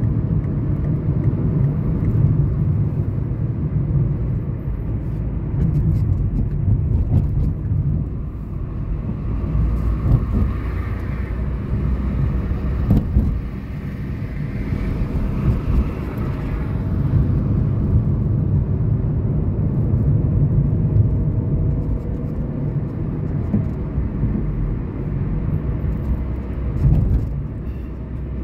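Steady low rumble of a car's engine and tyres while driving, heard from inside the cabin. A fainter, higher hum swells and fades around the middle.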